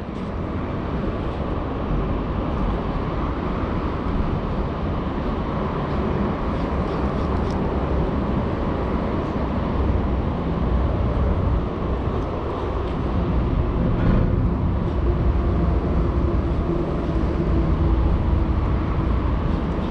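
Steady low rumble of road traffic on the bridge overhead.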